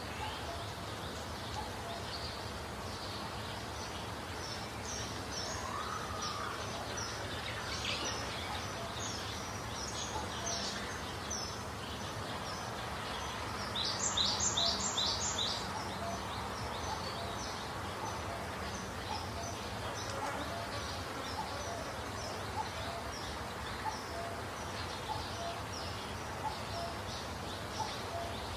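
Small birds chirping over a steady background hiss: repeated short high notes throughout, with a quick run of four louder chirps about halfway through.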